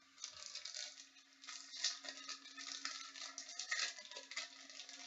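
Trading cards and foil pack wrappers being handled: soft, irregular crinkling and rustling.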